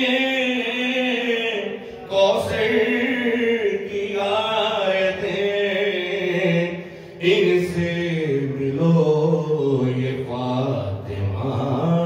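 A man's solo voice chanting a devotional poem into a microphone in long melodic lines with held notes, breaking off briefly about two seconds in and again about seven seconds in.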